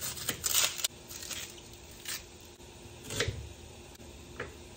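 Kitchen knife cutting an onion on a wooden cutting board: a few irregular crisp cuts and taps, a quick cluster near the start and a heavier knock about three seconds in.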